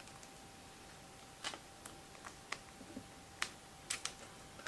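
A few faint, sharp clicks and ticks of fingers and nails handling a strip of washi tape, scattered over the last three seconds.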